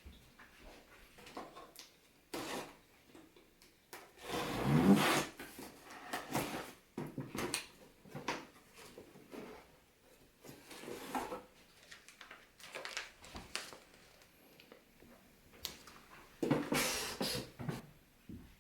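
Intermittent handling noises: knocks, scrapes and rustling of objects being moved about, with louder stretches about four seconds in and near the end. No motor is running.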